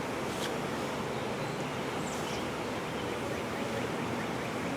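Steady hum of honeybees around an open hive.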